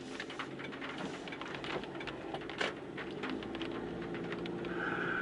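A car cabin with the engine humming low and many irregular light ticks and taps. A steady high tone starts near the end.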